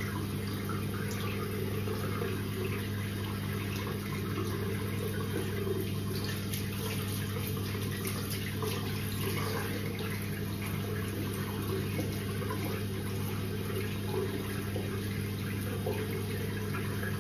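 Water running from a tap into a sink with splashing, as a face is rinsed by hand, over a steady low hum.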